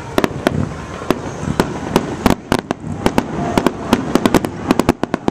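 Aerial fireworks in the finale of a display: a rapid barrage of sharp bangs and cracks over a constant rumble, the reports coming thicker in the last couple of seconds.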